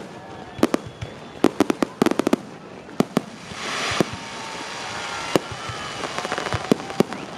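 Aerial fireworks shells bursting in rapid succession: many sharp bangs, some single and some in quick clusters. There is a stretch of hissing about three and a half seconds in.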